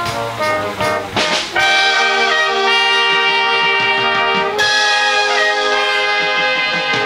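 Brass band of cornets, tenor horns, euphoniums and tubas playing. A few short detached notes give way about a second and a half in to long held chords, which change about four and a half seconds in.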